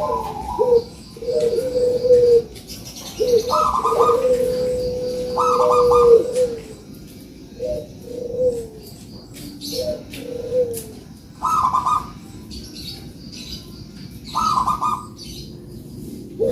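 Puter doves cooing in repeated phrases: low coos, one long drawn-out note early on, then shorter coos broken by higher notes about every one and a half to three seconds, with faint small-bird chirps above.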